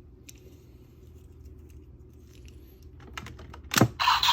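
Plastic clicks from working the parts of a DX Gigant toy belt buckle by hand, ending in a loud snap near the end as a piece locks into place. Right after it, the toy's electronic sound effect starts from its small speaker.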